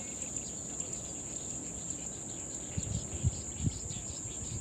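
Steady, high-pitched insect chorus, with a few low thumps about three seconds in.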